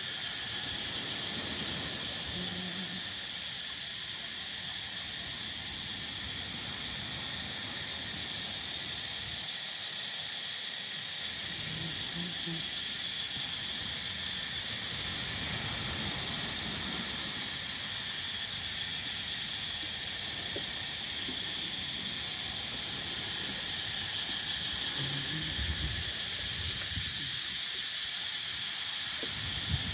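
Steady high-pitched drone of tropical insects, an unbroken hiss-like chorus that holds at one level.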